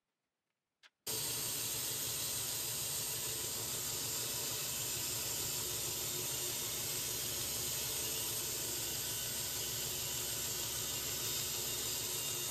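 Bandsaw running steadily while its blade cuts through a thick foam block, a constant whirring hiss that starts abruptly about a second in.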